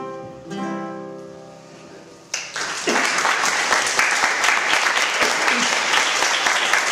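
Classical guitar's final chord struck and left to ring out, fading away; about two seconds in, audience applause starts suddenly and carries on loudly.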